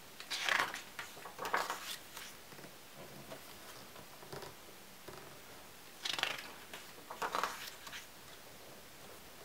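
Pages of a printed photo-album book turned by hand, twice: each turn is a pair of quick papery swishes and rustles, the first turn about half a second in, the second about six seconds in.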